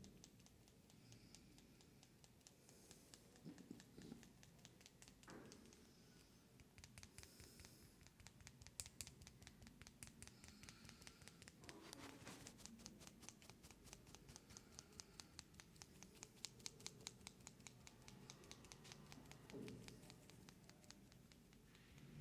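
Faint scratching of fingers working through hair on the scalp during a head massage. For much of the time it comes as a fast, even run of short scratches.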